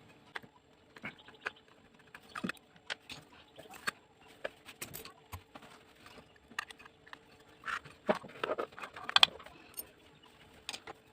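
Scattered light clicks and taps of small tools handled against a circuit board, as a TDA2030 amplifier IC is being worked off an amplifier board, over a faint steady hum.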